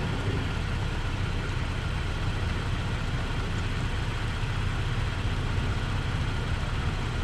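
A vehicle engine idling steadily: a low, even hum with a steady hiss over it.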